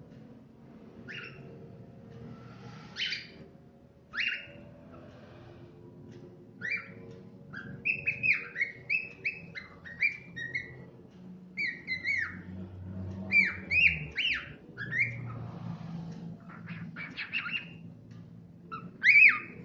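Tame cockatiel singing. A few separate short calls come first, then from about six seconds in a quick run of whistled notes that swoop up and down.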